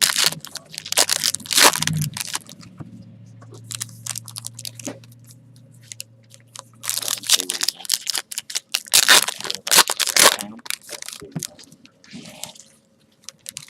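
Foil trading-card pack wrappers being torn open and crinkled, in crackling bursts near the start and again about seven to ten seconds in.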